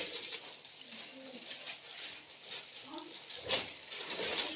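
Plastic cat food bags rustling and crinkling as they are handled, with a couple of sharp handling clicks late on. Two brief, soft low coo-like calls sound in between.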